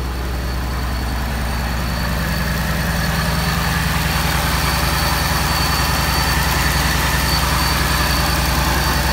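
2017 Mustang GT's supercharged 5.0 L Coyote V8 idling steadily just after an oil change, with a steady high whine over the engine note, getting a little louder about two seconds in. The owner judges it to be running fine so far.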